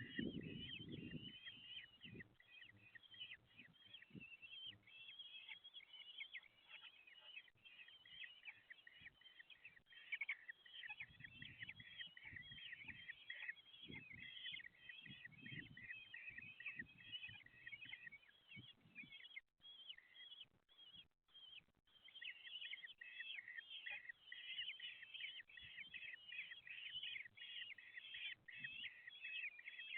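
Common kestrel chicks begging in the nest box: a dense, continuous run of rapid high calls that breaks off briefly about two-thirds of the way through, over low rustling and thumps as the birds move about.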